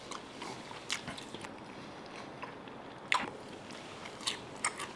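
A man chewing a mouthful of fried potatoes and bread close to the microphone, with a few soft mouth clicks and smacks; one sharper click comes about three seconds in.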